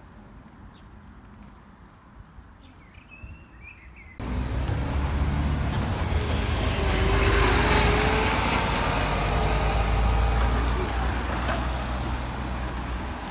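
Small birds chirping in repeated short high calls over a quiet background. About four seconds in this gives way abruptly to loud road traffic: motor vehicles passing close by with a deep engine rumble, loudest around eight seconds in, then easing a little.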